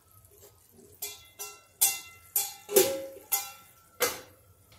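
Stainless steel lid and utensils clinking: about seven sharp metallic clinks with short ringing, the last as the steel lid is set down on the frying pan.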